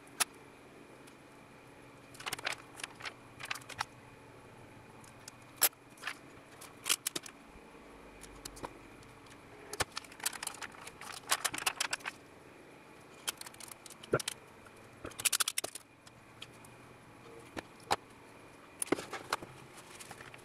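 Hands handling a thin plastic-film solder paste stencil and strips of tape over a circuit board: irregular clusters of crinkles and sharp clicks with short pauses between them.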